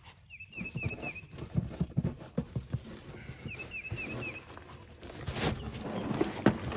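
Irregular knocks and clatter from hand work prying at a rotted floor. A bird sings the same short phrase of four or five quick chirps three times over it.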